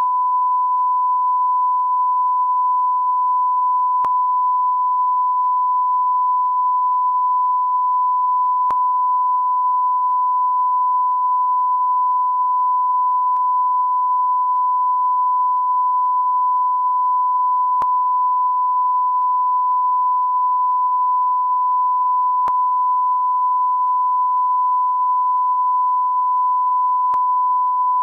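A single steady electronic beep tone at one high pitch, held unbroken like a censor bleep or test tone. Faint clicks can be heard every few seconds where the tone is looped.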